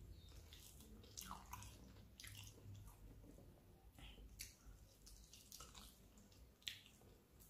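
Faint wet chewing and mouth smacking of someone eating chicken feet, with irregular small clicks, the sharpest one near the end.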